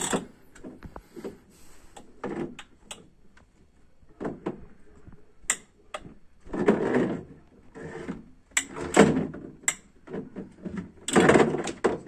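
Hard plastic toy excavator clacking and rattling as a small child handles it and knocks it against the plastic truck-bed liner: a string of sharp clicks with a few short scraping bursts.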